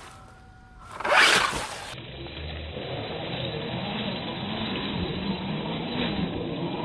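Losi Rock Rey radio-controlled rock racer driving over rough ground: its electric drivetrain and tyres scrabbling, with a loud scrape about a second in, then a steady running noise that slowly builds.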